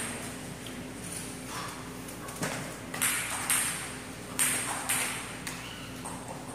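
Table tennis ball bouncing: a scattered series of sharp, light taps, several about half a second apart.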